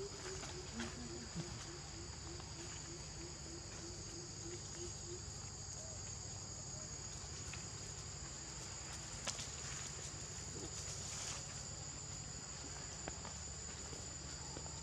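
Steady, high-pitched insect drone in two bands, with a low hum beneath. For the first five seconds or so a run of faint low hoots repeats about three times a second. A few soft rustles and taps come from macaques moving over dry leaf litter.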